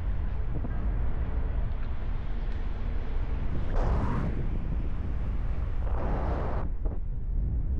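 Wind rushing over the microphone of a paraglider pilot's camera in flight: a steady low rumble, with two louder gusts about four and six seconds in.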